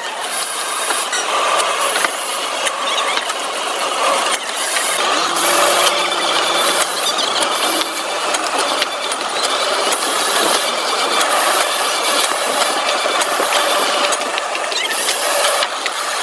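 Industrial processing machinery running steadily, with continuous rattling and scraping.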